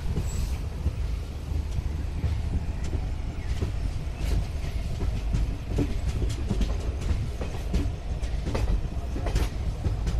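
Passenger train running along the track, heard from an open coach doorway. A steady low rumble of wheels on rail is broken by scattered sharp clicks and knocks as the wheels pass over the track.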